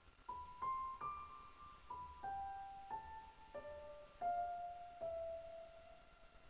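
Slow solo piano melody, one note at a time, about two notes a second, with the last note held for over a second near the end.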